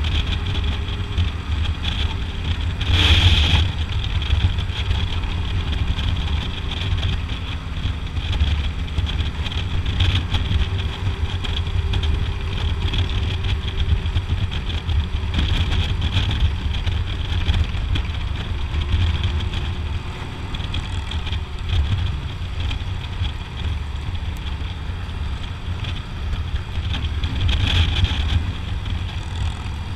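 Touring motorcycle engine running steadily at cruising speed, a deep steady rumble under a constant rush of wind. Two brief louder rushes of wind noise come about three seconds in and again near the end.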